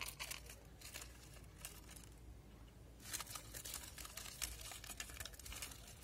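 Faint rustling and crinkling made of many light, scratchy clicks, dropping quieter for about a second a little after two seconds in.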